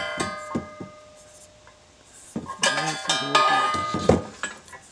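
Flat steel tines clanking and ringing against a slotted steel rake bar as they are fitted into its slots. A short spell of metal clatter right at the start, and a longer one about two and a half to four seconds in.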